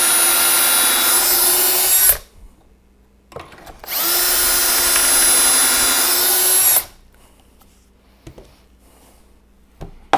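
Milwaukee drill spinning a Kreg stepped bit into plywood through a pocket hole jig, boring pocket holes. Two steady runs of about three seconds each: the first stops about two seconds in, the second starts about four seconds in and stops near seven seconds, followed by a few light knocks.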